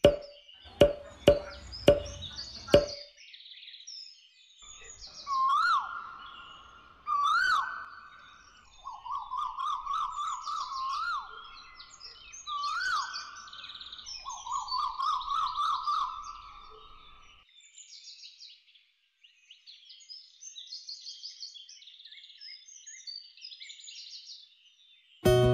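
Outdoor ambience of birds chirping, with several loud warbling calls, each lasting a second or two, through the middle. It opens with a quick series of sharp knocking croaks.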